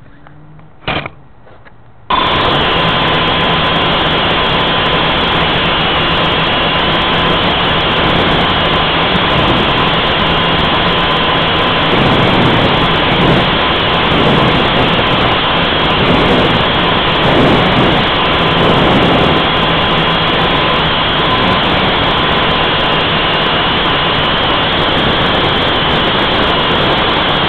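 Blade 180 QX quadcopter's motors and propellers, picked up by its own onboard camera. After two short clicks the motors start suddenly about two seconds in, then run as a loud, steady rushing noise with a high, even whine through the climb.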